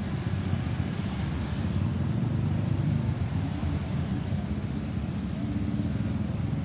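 Steady road traffic noise: the engines and tyres of passing motor vehicles, holding an even level with no siren sounding.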